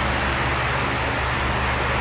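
Electric fan running steadily: an even whooshing rush of air over a low motor hum.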